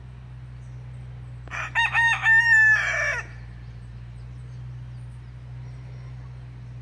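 A rooster crowing once, about a second and a half in: a few short notes and then a longer held note that drops at the end. A steady low hum runs underneath.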